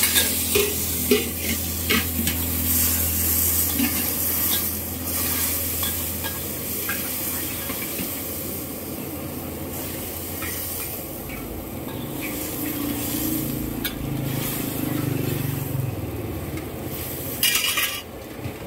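Liquid sizzling and bubbling in a steel wok over a gas burner, with metal ladle and lid clinks against steel pots in the first few seconds. A brief louder burst of sizzling comes near the end.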